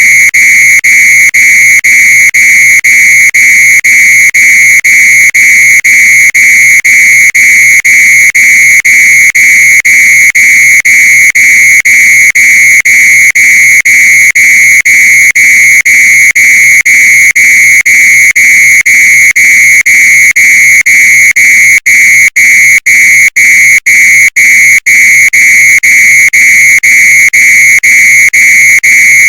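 Fire alarm sounding a loud, continuous shrill tone with a fine, even pulsing. About three quarters of the way through it stutters, with several short dropouts.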